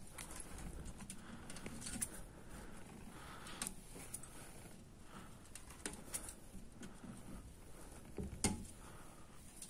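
Fingertips rubbing and picking over the thin aluminium fins of a motorcycle radiator core, clearing loose flakes from them: a faint scratchy rustle with a few sharp ticks, the loudest near the end.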